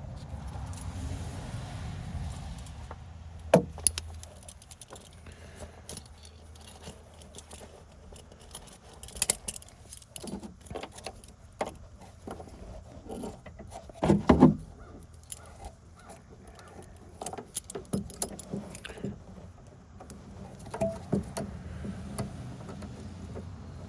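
Metal hand tools and brake-line fittings being handled: scattered light metallic clinks and rattles, with one louder clatter about fourteen seconds in. A low rumble in the first few seconds fades away.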